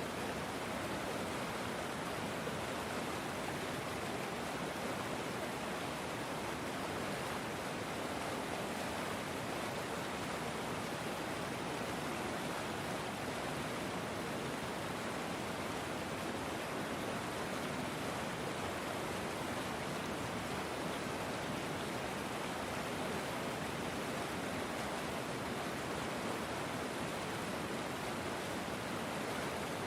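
River water flowing, an even, unbroken rushing.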